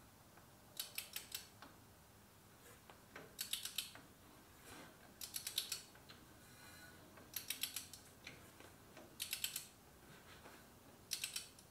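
Ratchet head of a half-inch torque wrench clicking in short bursts of a few clicks, about every two seconds, as the wrench is swung back between pulls while a Subaru EZ30 flat-six is turned over by hand at the crank. No scraping or knocking comes from the engine as it turns, a sign that nothing is hitting the starter.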